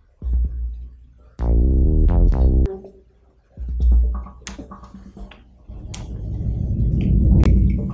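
Electronic synthesizer music with heavy bass hits and pitched notes, swelling into a louder sustained bass near the end.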